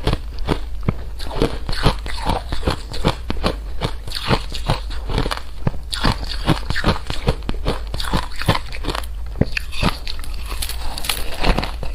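Crunchy food being bitten and chewed close to the microphone: a rapid, uneven run of sharp crunches, several a second.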